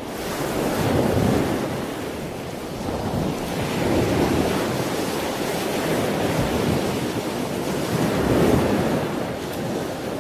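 Ocean surf washing in: a steady rush of breaking waves that swells about a second in, again around four seconds and again near eight and a half seconds.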